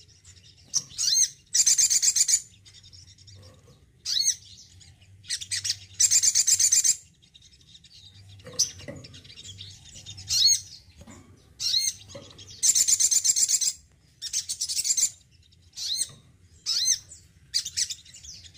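Male olive-backed sunbird (sogon) singing: loud high-pitched phrases of rapid repeated notes, each about a second long, come again and again between short sharp chirps.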